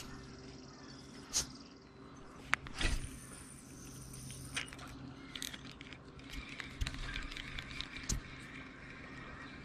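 Handling noise from a fishing rod and reel being worked by hand close to the microphone: scattered sharp clicks, knocks and rustles, with a quicker run of small ticks in the second half, over a steady low hum.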